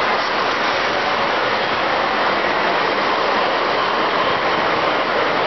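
Model train running past close by: a steady rushing noise of its wheels on the rails and its running gear.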